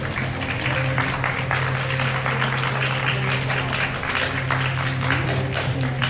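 Music playing, with audience applause over it.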